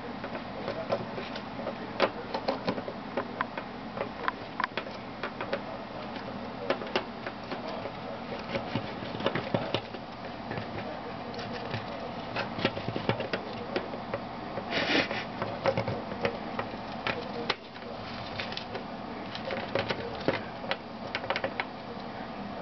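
Syrian hamster gnawing on the hard plastic escape-hatch dome of a Habitrail cage: a fast, irregular run of sharp clicking and scraping as its incisors bite and grate on the plastic.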